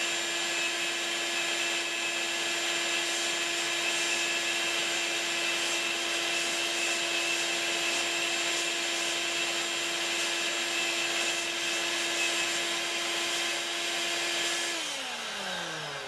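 CNC router's spindle motor running steadily with a high whine, along with the rush of the dust collection. About fifteen seconds in the machine is switched off, and the whine falls in pitch as it winds down.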